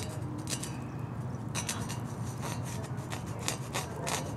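Fingers rubbing and scraping along the wet metal bars of a grill grate: a series of short scratchy strokes as vinegar-loosened rust is wiped off, over a steady low hum.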